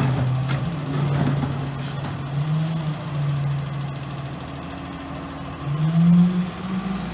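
Diesel engine of a rear-loader garbage truck running, with a couple of sharp knocks in the first two seconds. About six seconds in, the engine revs up louder and higher as the truck pulls away.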